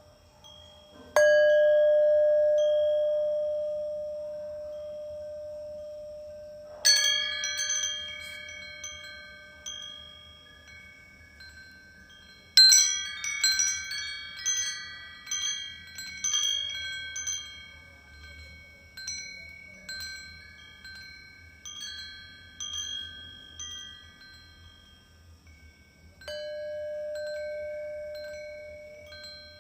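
A singing bowl is struck once and rings at one steady pitch, fading over several seconds. Then wind chimes tinkle in two bright clusters of strikes and a scattering of lighter ones. The bowl's tone swells back in near the end.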